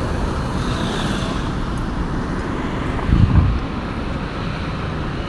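Steady road traffic, cars and a light truck passing close by. About three seconds in, a brief gust of wind buffets the phone's microphone.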